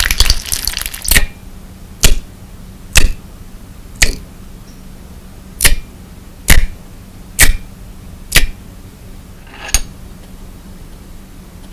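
Slime mixed with crystal glass decorative stones being pressed and worked by hand. It crackles densely for the first second, then gives about nine sharp clicks roughly a second apart.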